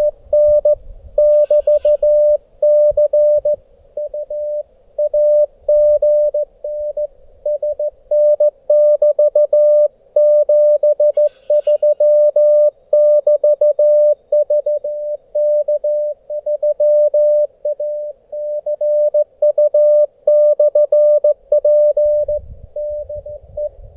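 Morse code (CW) tone from a Xiegu G90 HF transceiver: a single steady pitch keyed on and off in quick dots and dashes. Long runs of characters are broken by short gaps between words.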